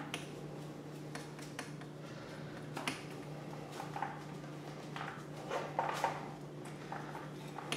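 Scattered light handling noises, rustles and small clicks and knocks, as a bag of earthworm castings is tied off around an aquarium air stone, over a steady low hum.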